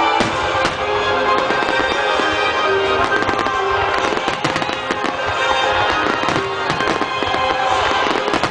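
Fireworks bursting and crackling again and again, over orchestral theme music played through loudspeakers.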